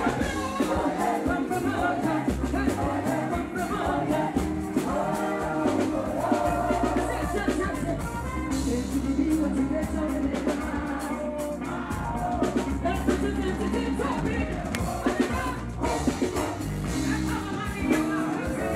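Live gospel music: a woman singing lead into a microphone with backing singers, over a band with drums and a steady bass, amplified through a stage PA.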